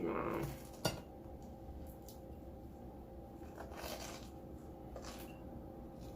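Close-up mouth sounds of eating: a brief voiced sound at the start, a sharp click just before one second in, then a few soft, scattered crunching chews of crunchy buttered hoagie bread.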